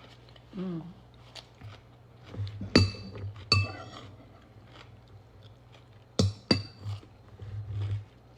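Eating utensil clinking against a dish four times, each strike with a brief ringing tone: two strikes close together about three seconds in, then two more a little past six seconds.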